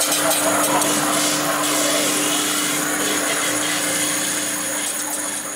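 Loud, steady machine noise: a broad hiss with a steady hum and a high whine running through it, fading out near the end.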